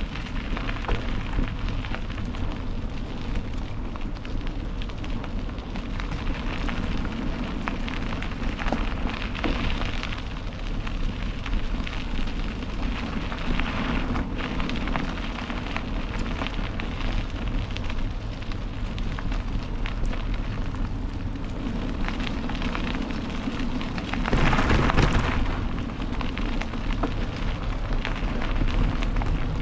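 Mountain bike tyres rolling over a dirt and gravel trail strewn with leaves: a steady crackling rumble full of small ticks, with a louder rush for a second or two about three-quarters of the way through.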